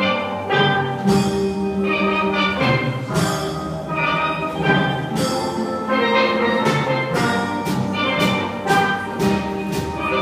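Steel drum band playing a heavy metal song arranged for steel pans: a continuous run of struck, ringing pitched notes with percussion underneath.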